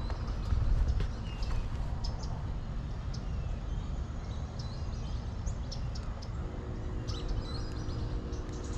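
Yellow-rumped warblers calling with short, high chip notes scattered through, over a steady low background rumble. A faint low steady hum comes in past the middle.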